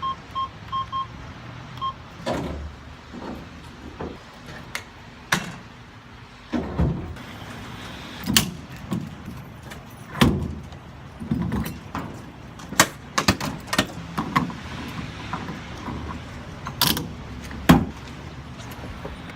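A vehicle's warning chime beeps a few times in quick succession, then a long series of knocks, clunks and door thuds over a steady hiss of rain.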